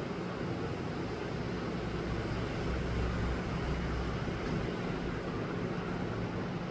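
Steady room noise: a constant hiss with a low, unchanging hum underneath.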